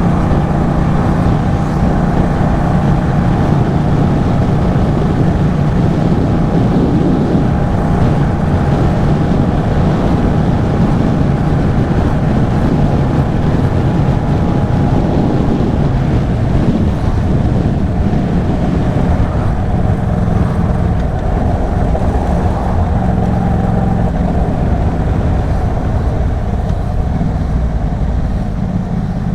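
Yamaha MT-07's parallel-twin engine running through an aftermarket Arashi exhaust on a ride. The engine note holds steady, then shifts in pitch with throttle changes about halfway through.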